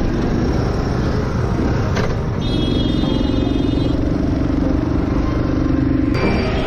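Honda Trail 110's small single-cylinder four-stroke engine running at low speed, with road and wind noise. A steady pitched tone comes in about two and a half seconds in and cuts off abruptly at about six seconds.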